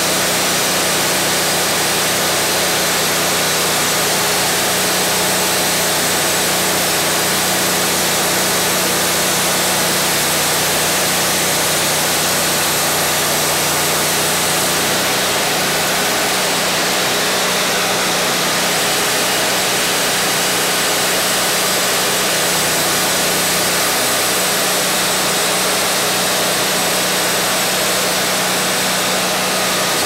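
Wood-Mizer LT40 portable band sawmill running steadily, its engine and moving band blade making a loud, even noise over a steady hum; the low part of the hum thins about halfway through.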